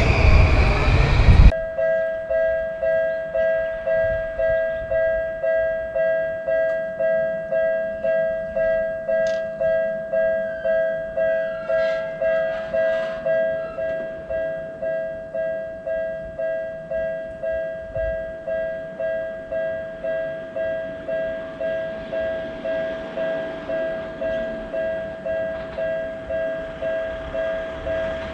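Japanese railroad crossing's electronic warning bell ringing steadily, about two strikes a second. It opens with a passing train's noise, which cuts off abruptly after a second and a half; the bell is a little quieter from about halfway.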